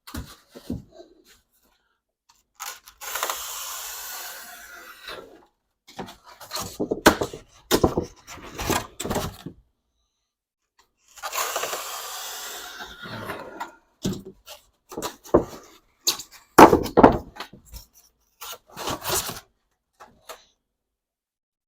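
Plywood and foam board being worked by hand: two long scrapes of about two seconds each, with a scatter of knocks and clacks between and after them.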